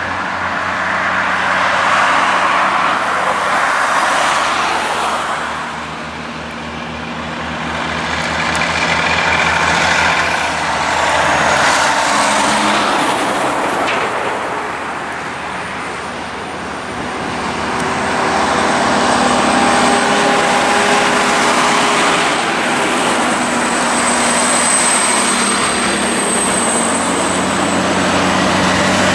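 Highway traffic passing close by: cars and heavy diesel trucks, with tyre and engine noise swelling and fading as each vehicle goes past. The engine noise is steadier and heavier in the second half as trucks approach.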